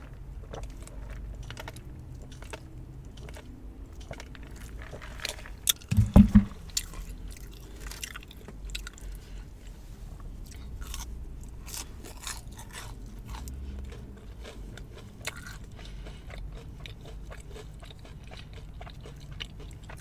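Close-up chewing and crunching of fast food, with many small crunches and mouth clicks. A brief loud low sound stands out about six seconds in.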